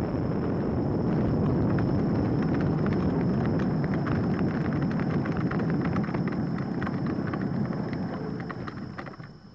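Open microlight trike in flight and on the ground: steady wind and engine noise, heaviest in the low end, with many quick rattling knocks from about a second and a half in as it bumps over the grass airfield. The noise fades away near the end.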